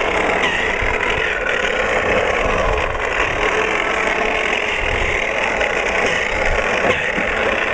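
Electric snow blower running steadily at full speed, a loud even motor-and-auger noise.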